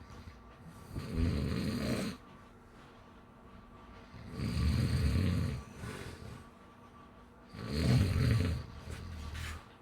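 Snoring: three snores about three seconds apart, each a low fluttering rattle with breathy hiss lasting one to two seconds.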